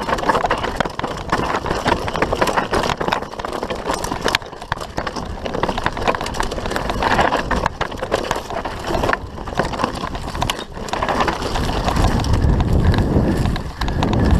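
Mountain bike rattling and clattering over a rough dirt trail on a fast descent, tyres crunching on loose ground, with wind buffeting the camera microphone and a low rumble that grows near the end.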